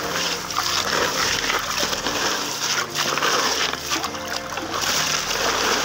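Running water splashing over wet gravel and sand as it is scooped by hand from a toy dump truck's bed, with faint background music.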